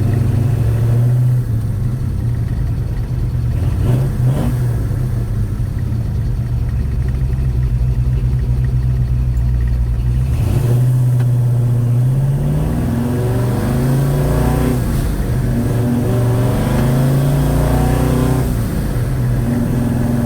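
Chevy 307 small-block V8 running under way, steady for the first half, then climbing in pitch several times as the car accelerates.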